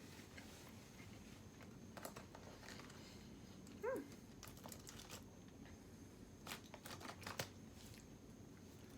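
Faint eating and food-handling sounds: scattered clicks and crinkling from takeout packaging. About four seconds in there is one short high squeak.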